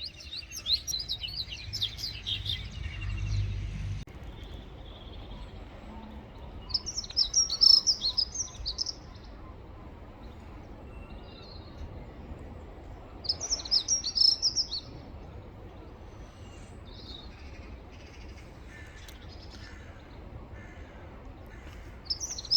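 Female pied bushchat calling: bursts of rapid, high chirps about two seconds long, loudest a third of the way in, again past halfway and at the very end, with fainter chirps between.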